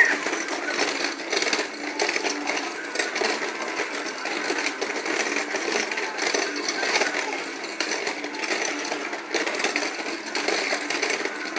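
Battery-powered toy car playset running, its small plastic cars clattering and rattling steadily around the moving plastic tracks.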